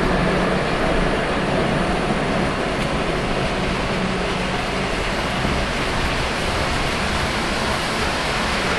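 Lionel O gauge model trains running on three-rail track: a steady rumble and whir of wheels and motors, with a faint underlying hum.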